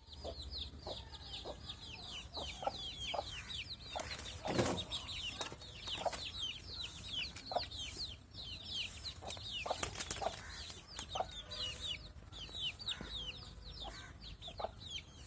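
A group of chicks peeping continuously: many short, falling cheeps overlapping one another, with scattered light taps and knocks.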